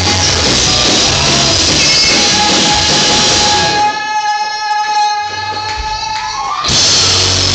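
Live rock band playing loudly: drums, cymbals and amplified guitar. About four seconds in, the band drops back to a single held high note for a few seconds, then comes crashing back in near the end.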